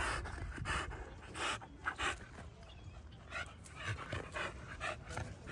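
American Bully dog panting, a run of short breathy puffs, coming quicker a few seconds in.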